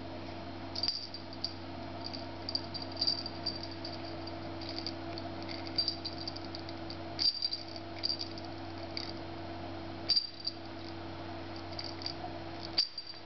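A small jingle bell tinkling in short, irregular clusters as a cat bats and paws at it, over a steady low hum.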